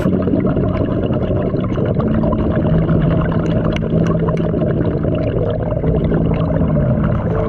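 Muffled underwater sound picked up by a diver's camera: a dense low rumble with a steady low hum, and scattered faint clicks.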